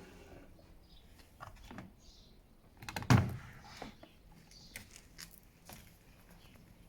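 The door of a Bosch washing machine being handled, with scattered light clicks and knocks and one loud thump about three seconds in.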